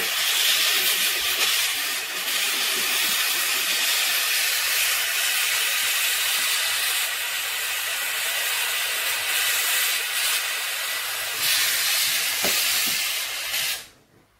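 Jeweller's gas torch flame burning with a steady hiss while melting scrap metal in a crucible and heating the ingot mould. The hiss cuts off suddenly near the end.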